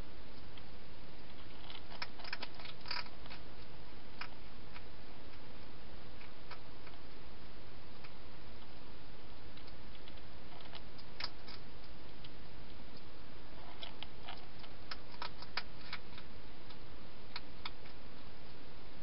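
Wild hedgehog eating at the dishes inside a plastic-box feeding station: irregular sharp clicks and crunches, in small clusters, over a steady hiss.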